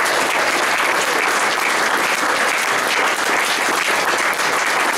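Audience applauding, many hands clapping steadily without a break.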